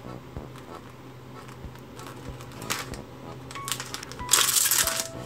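Plastic wrapper of an individually packed sponge cake crinkling as it is handled and torn open: a few short crackles, then the loudest, dense crinkling about four and a half seconds in.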